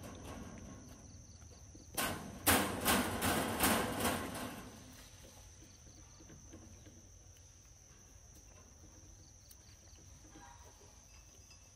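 Macaque eating a ripe mango close to the microphone: a quick run of wet smacking and chewing clicks about two seconds in, fading out by the middle. A steady high-pitched insect drone runs underneath.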